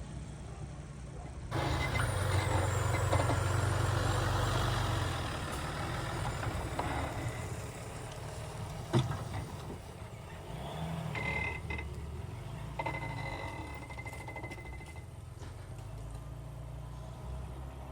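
A vehicle engine running steadily, louder for the first few seconds, with a sharp knock about nine seconds in and a thin high tone sounding briefly later on.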